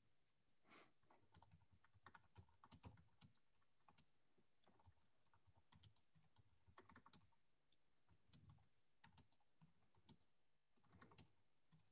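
Faint typing on a computer keyboard: quick, irregular key clicks in short runs.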